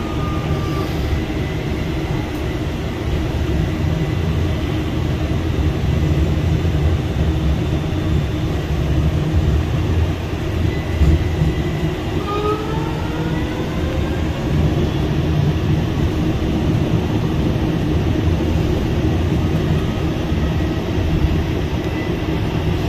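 Streetcar running, heard from inside the car: a steady low rumble, with a rising electric motor whine as it picks up speed about twelve seconds in.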